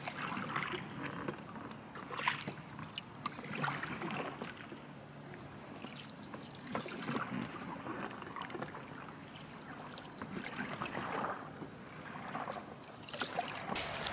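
Canoe paddle strokes: the blade dips and pulls through lake water about every one to two seconds, with splashes and drips off the paddle.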